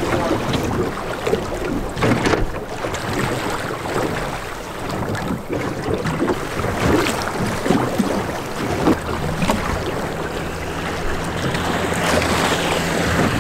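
Wind buffeting the microphone and choppy waves splashing and slapping against a small boat's hull. A boat motor's low, steady hum comes in during the second half and grows louder near the end.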